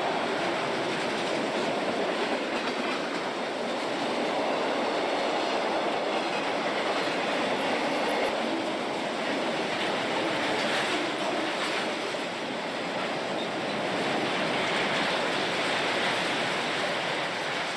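Dubbed-in train sound effect: a train rolling on rails with a steady rumble of wheels and cars.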